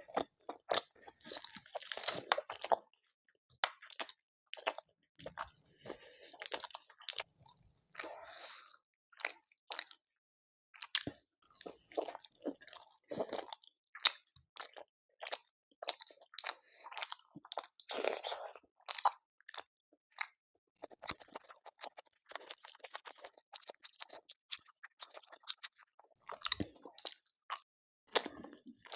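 Close-miked chewing and mouth sounds of a person eating chicken curry with pulao rice and puri: a dense, irregular run of short clicks and smacks, with a few louder bursts of chewing about 2, 13 and 18 seconds in.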